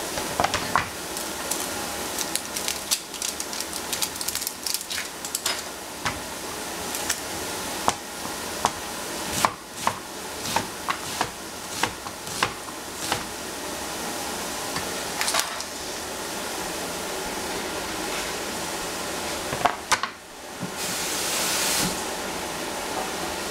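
Cleaver chopping a red onion on a plastic cutting board: quick, irregular knocks of the blade hitting the board for about fifteen seconds, then a few more knocks and a short hiss near the end, over a steady background noise.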